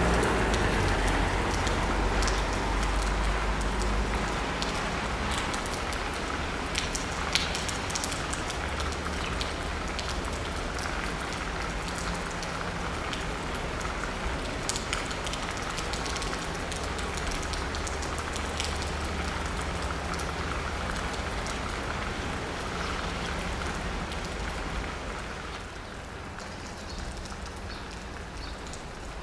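Steady city rain pattering on asphalt and rooftops, with many single drops ticking. A low traffic rumble from a passing car fades out over the first few seconds, and the rain eases slightly near the end.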